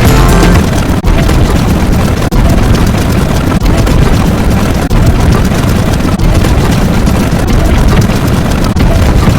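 Loud, heavily distorted rumbling sound effects, one clip cut straight into the next, with a short dip about every 1.3 seconds.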